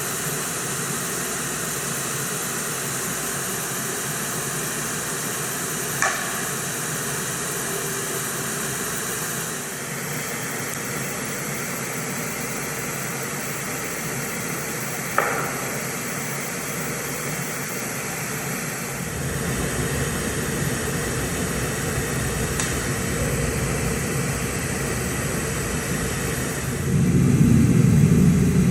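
Steady hiss of outdoor night ambience, broken twice by a single sharp knock, about 6 s and about 15 s in. A low rumble builds from about two-thirds of the way through and grows louder near the end.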